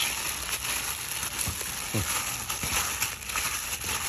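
Plastic bag worn over a hand crinkling as it rubs and mixes spice paste into raw lamb ribs, a continuous light crackle.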